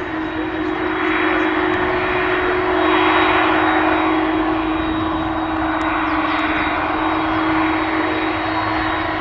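Airbus A300-600ST Beluga's twin General Electric CF6-80C2 turbofans running at taxi power: a steady hum with a faint high whine over a rushing hiss that swells about three seconds in.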